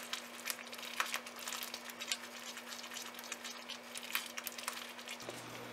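A silicone spatula stirs a thick, thickening kalakand mixture of milk and ricotta in a nonstick pan on low heat, making irregular soft scrapes, clicks and crackles.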